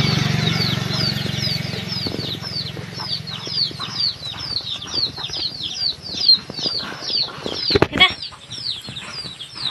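Chicks peeping: a steady run of short, high, falling chirps, about four a second. A low rumble fades out in the first second, and there are a few sharp knocks near the end.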